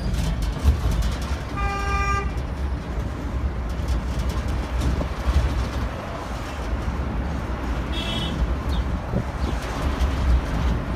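Ride on an open tourist road train: a steady low rumble of the engine, tyres and wind on the microphone. A horn sounds once for about half a second, about two seconds in, and a brief high-pitched tone comes about eight seconds in.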